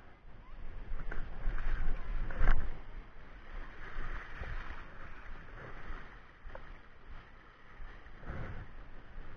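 Sea water washing and foaming over shoreline rocks, a steady wash with a low rumble in the first few seconds. A short knock about two and a half seconds in and another near the end.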